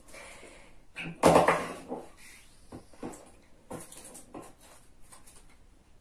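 Paper rustling and small clicks and taps of craft materials being handled on a table, with one louder rustle about a second in.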